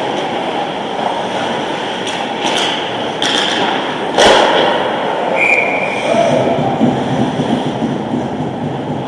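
Ice hockey play at a rink: a steady rush of skating and rink noise, with one sharp crack of stick and puck about four seconds in as a goal is scored. Players' shouts follow.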